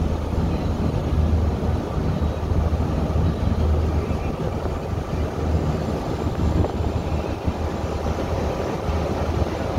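River passenger ship's engine running steadily under way, a low drone, with water rushing along the hull.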